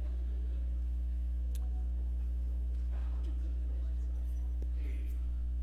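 Steady low electrical hum from the PA system, with faint distant voices and a single light click about one and a half seconds in.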